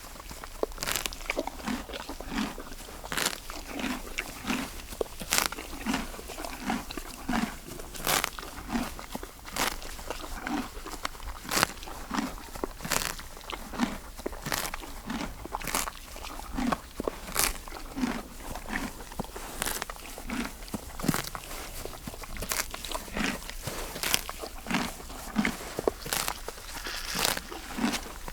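A horse grazing: it tears and chews green grass, giving irregular crunching bites about once or twice a second with soft low thuds of chewing between them.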